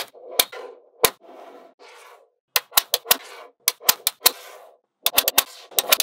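Small magnetic balls clicking as they snap together: sharp clicks, single at first, then in quick runs of three or four, with a soft rattle of balls between the clicks.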